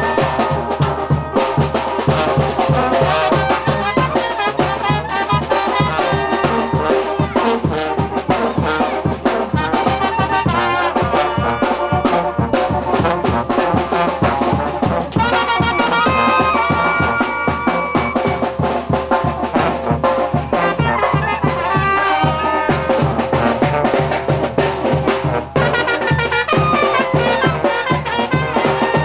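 Brass band music with drums and a steady beat.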